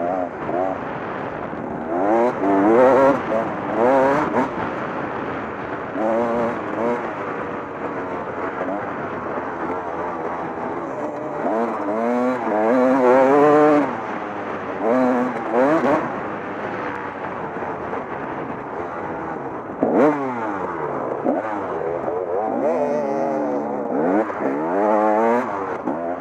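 Off-road motorcycle engine revving hard and falling back over and over, its pitch climbing and dropping with each pull. The strongest pulls come about three, thirteen and twenty seconds in.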